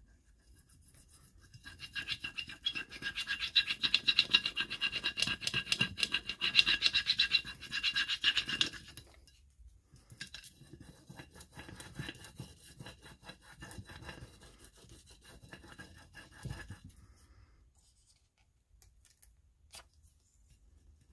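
A flat plastic burnishing stick rubbed rapidly back and forth over a rub-on transfer on a curved glass jar, burnishing the design so it lifts off its carrier sheet onto the glass. A loud, squeaky, scratchy rubbing that runs hard for several seconds, then turns to lighter, broken strokes and stops a few seconds before the end.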